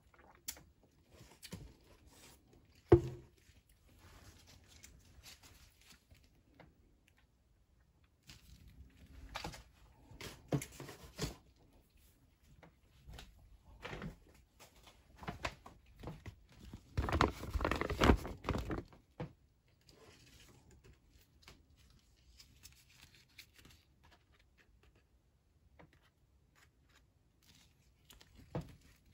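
Handling noises at a table: a single sharp knock about three seconds in, scattered light clicks and taps, and a burst of crinkling from the MRE's plastic packaging in the middle, the loudest stretch.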